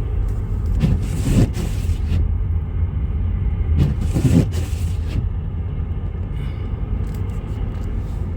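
Steady low road rumble of a car driving, heard from inside the cabin, with two louder rushing hisses about three seconds apart, each lasting about a second.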